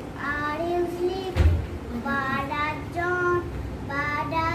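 A young boy reciting a lesson aloud in a sing-song chant, the syllables drawn out on held notes. A single thump comes about a third of the way through.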